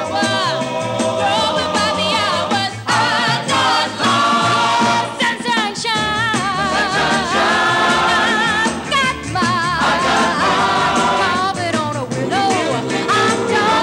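Several voices singing together in harmony over instrumental backing, with a lively, continuous vocal line.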